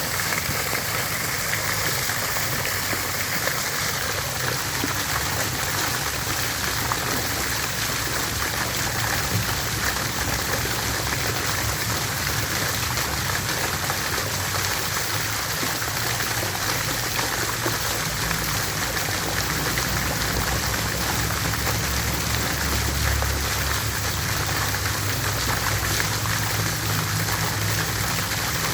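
Water fountain splashing steadily: an even, unbroken rush of falling water.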